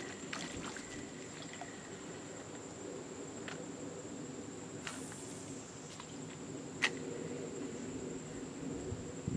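Quiet outdoor ambience: a steady high-pitched whine and a low steady hum, broken by a few sharp clicks around the middle.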